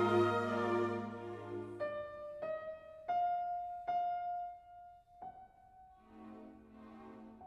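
Background piano music: a held chord fading, then a slow run of single notes that ring and die away, with soft chords returning near the end.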